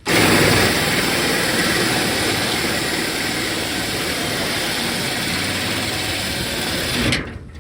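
Power drill spinning a rotabroach spot-weld cutter through a spot weld in the truck bed's sheet steel. It starts suddenly and runs steadily for about seven seconds, then stops once the cutter has gone through.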